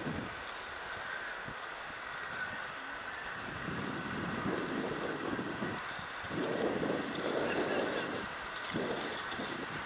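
Inline skate wheels rolling on asphalt, a steady whirring hiss from a group of skaters moving together. Wind rumbles on the microphone in gusts, strongest about four to eight seconds in.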